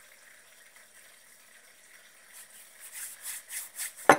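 Hands rubbing and picking slime made of flour and shower gel off the fingers: quiet at first, then a quick run of short, hissy rubbing sounds in the second half. One sharp knock comes just before the end.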